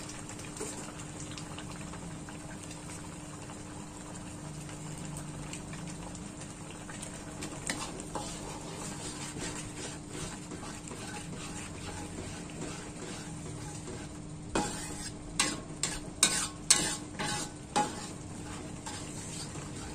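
Thick red chili spice sauce sizzling in a wok while a metal spatula stirs it. From about 14 seconds in, a quick run of sharp scrapes and knocks of the spatula against the wok.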